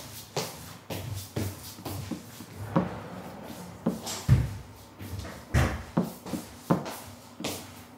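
Irregular knocks and thumps of someone moving about indoors, like footsteps and things being handled, with a heavier low thump a little past four seconds in and another about a second later.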